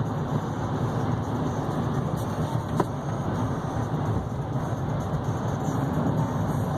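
Steady driving noise inside the cab of a 2015 GMC Sierra 3500HD with the 6.6-litre Duramax diesel V8: engine and road noise under way. A single sharp click about three seconds in.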